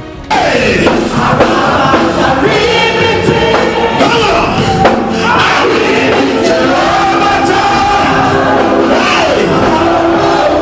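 Loud gospel worship music with group singing, a choir or congregation over the band, cutting in suddenly just after the start.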